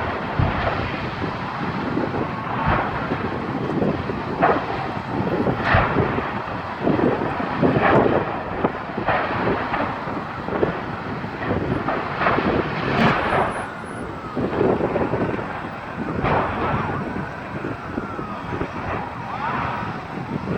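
Large fire at a welding gas supply burning with a steady roar, broken every second or few by sharp bangs as compressed gas cylinders burst. The bangs come irregularly, one after another.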